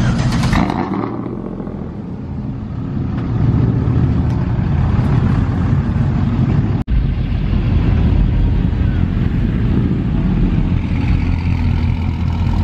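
Pickup truck exhaust through long tube headers, a loud, deep, steady rumble at close range. It eases off about two seconds in, swells again, and breaks for an instant near the middle.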